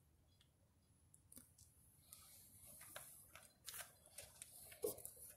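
Near silence with faint handling noise: small scattered clicks and rustles, a few sharper ticks in the second half.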